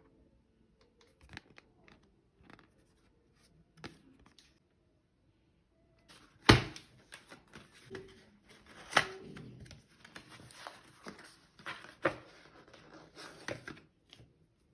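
Paper cards and tags being handled: sparse light taps at first, then from about six seconds in louder rustling of paper with several sharp clicks.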